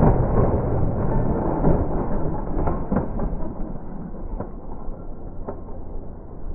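Slowed-down street audio from a motorcycle-and-van crash scene, heard as a deep, muffled rumble with a few faint knocks, fading gradually.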